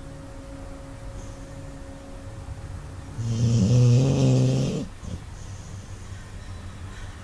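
Snoring during sleep: one loud, long snore about three seconds in, lasting about a second and a half, with quieter breathing before and after it.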